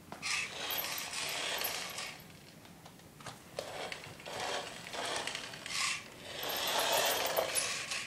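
Small toy RC car's electric motor and plastic gears whirring in several bursts of a second or two as it is driven on and off, the longest near the end.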